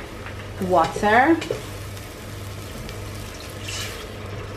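Tomato and pepper sauce sizzling in a stainless steel pot while a wooden spoon stirs it. Near the end, water is poured in from a bowl, with a short hiss.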